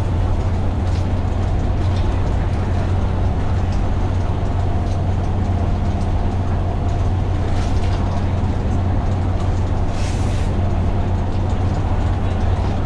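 Dennis Dart single-deck bus's diesel engine running steadily under way, a constant low drone, with a short hiss about ten seconds in.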